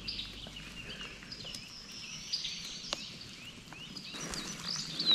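Small songbirds chirping and singing in the woods: thin high twitters and short whistles, growing busier near the end, with a faint click about three seconds in.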